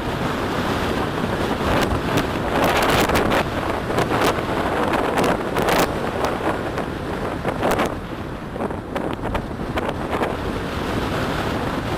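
Strong wind buffeting the microphone over the wash of sea waves, with several sharp clicks and knocks, clustered about three seconds in and again between four and six seconds.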